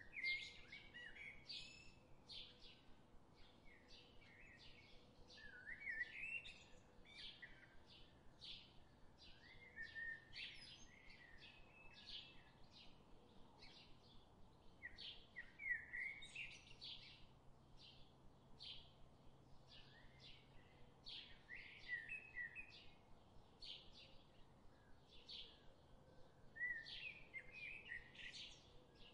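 Faint birdsong: quick high chirps about twice a second, with a louder twittering phrase every four to six seconds.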